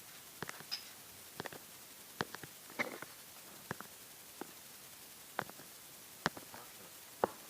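A dozen or so sharp clicks and light knocks at irregular intervals, with a brief rustle about three seconds in, over a quiet background.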